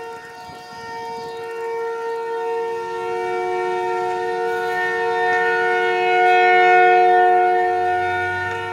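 Outdoor tornado warning siren sounding a steady wail. It grows louder to a peak about two-thirds of the way through, then eases off.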